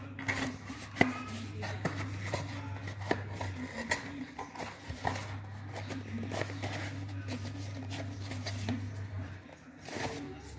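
Hands handling cardboard packaging and the boxed wireless HDMI units: scattered clicks, taps and rustles, the sharpest about a second in, over a steady low hum that drops out now and then.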